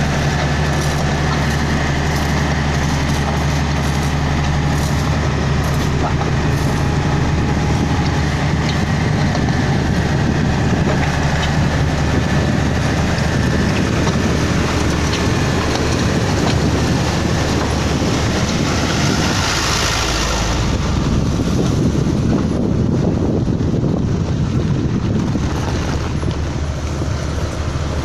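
Komatsu GD555 motor grader's diesel engine running steadily while the grader spreads road aggregate. There is a brief broad rush of noise about twenty seconds in.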